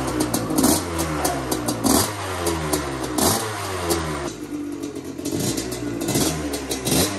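Yamaha Tri-Z 250's two-stroke single-cylinder engine running and being blipped: the revs rise and fall back about five times, with a steadier stretch in the middle. A light clatter rides over the exhaust note.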